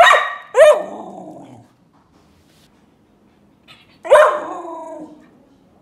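Border collie giving loud, tantrum-like bark-howls: two in quick succession, then a third about four seconds in. Each starts sharply and slides down in pitch as it trails off.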